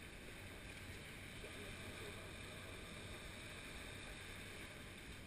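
Faint, steady beach ambience: small waves washing on the shore, with light wind.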